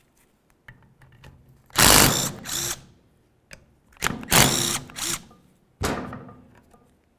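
Cordless power driver with a socket running in three bursts, the first two about a second long and the last shorter, spinning out a brake caliper's slider bolts.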